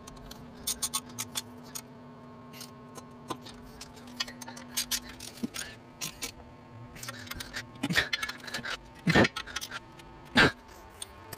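Hand ratchet clicking in short quick runs as bolts are run down through a steel adapter plate into an electric motor, with three louder metallic knocks near the end.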